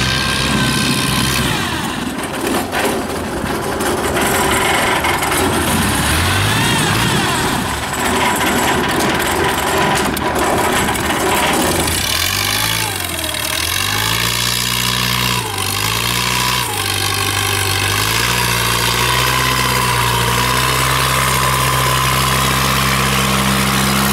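Long-tail boat engine pushing a loaded ferry barge, running steadily. About halfway through, its revs dip and rise again several times.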